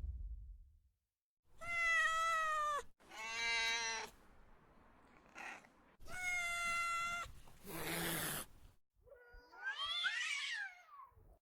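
Black cat meowing repeatedly: about five long, drawn-out meows with gaps between them, the fourth harsher and noisier and the last one wavering in pitch. At the very start the tail of a loud boom fades out.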